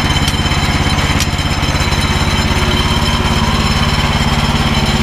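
Petrol engine of a Woodland Mills HM130 band sawmill running steadily, with a fast, even pulse.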